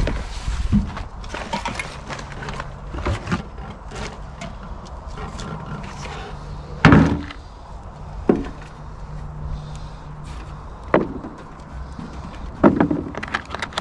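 Hands working through a tipped-out block of potato-bucket soil in a wheelbarrow, with soil rustling and several sharp knocks on the barrow and a plastic tray, the loudest about seven seconds in.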